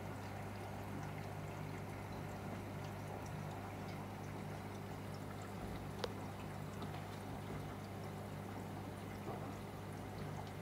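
Aquarium water circulating, a steady trickling, pouring sound over a low steady hum. One sharp click about six seconds in.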